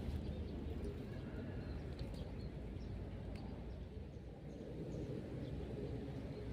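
Outdoor ambience: a steady low rumble, with a few faint chirps and light clicks.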